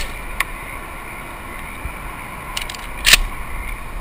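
A single sharp shotgun shot about three seconds in, with a few light clicks just before it, over a steady background hum.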